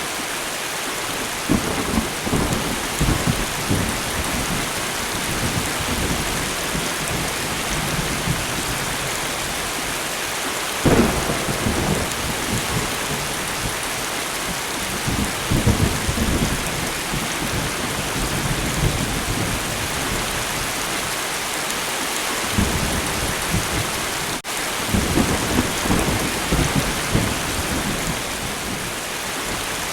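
Steady rain with thunder rumbling again and again through it. The loudest, sharpest roll comes about eleven seconds in.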